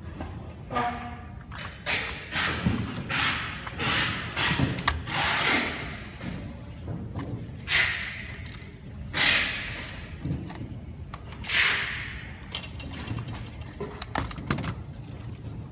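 Handling noise from hands plugging wire connectors into a robot vacuum's main circuit board: irregular rustling swishes and soft plastic knocks. The sounds thin out near the end.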